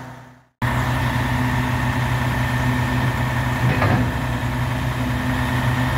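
Western Star hi-rail grapple truck's diesel engine idling steadily. The sound drops out briefly at the start and cuts back in abruptly about half a second in.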